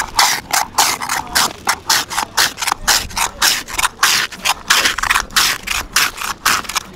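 Hand-held metal ice shaver scraping across a block of ice in quick repeated strokes, about four a second, shaving ice for sky juice.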